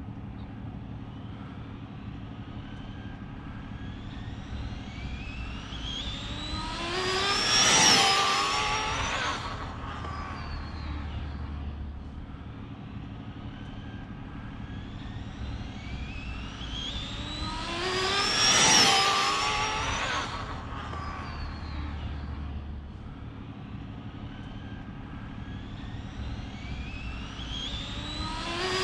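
Twin-motor Arrma Infraction RC car with TP Power 1700 kV brushless motors making high-speed passes: a whine that climbs in pitch as it accelerates, peaks loudly and drops as it goes by. This happens three times about ten seconds apart, the last right at the end.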